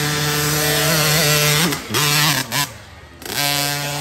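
Small dirt bike engine revving high and steady, its pitch wavering briefly. It cuts out for a moment about three seconds in, then comes back at high revs.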